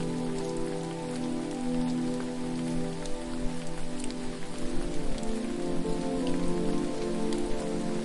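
Waterfall: a steady rush of falling water with a patter of scattered drops. Under it runs a layer of sustained low tones that shift to new pitches every second or so.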